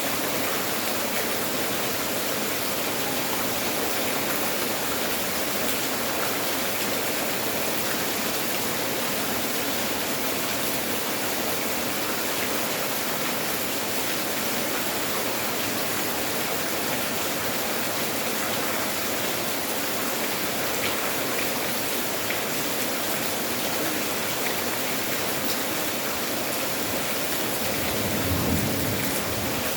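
Steady rain falling, an even, unbroken hiss of water, with a brief low rumble near the end.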